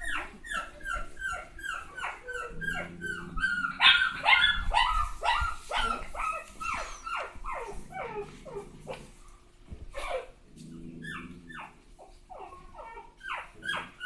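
A litter of young Labrador and Rottweiler puppies whining and yipping: a rapid string of short, high cries, each dropping in pitch, several a second, thinning out for a few seconds near the end.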